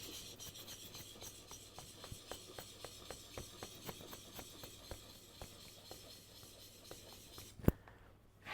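Steel chisel being rubbed back and forth on a sharpening stone: a faint, steady rasping scrape with quick, even strokes several times a second, as the edge is worked to raise a burr on the back. A single sharp click near the end.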